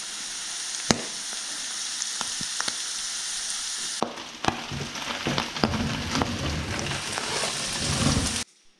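Pork neck, boiled false morels and freshly added sliced onion frying in a pan: a steady sizzle with sharp crackling pops, growing more uneven in the second half, then cutting off suddenly near the end.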